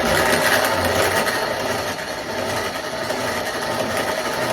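Hand grain mill grinding dried split peas (dhal), a steady dense grinding noise; this first handful is being run through to grind the black dirt out of the mill.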